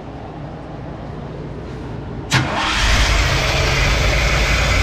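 Ford 302 small-block V8 being cranked by the starter with an even rhythm. About two and a half seconds in, it catches with a sharp pop and runs loud and rough, which the owner puts down to the ignition timing needing to be reset.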